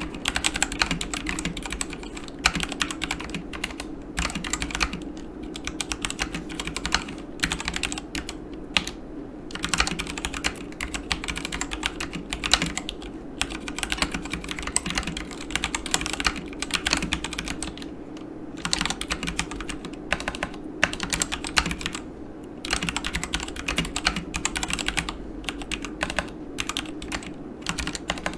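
Continuous typing on a Yunzii KC84 mechanical keyboard with Gateron Black linear switches: fast runs of key clacks with brief pauses between bursts.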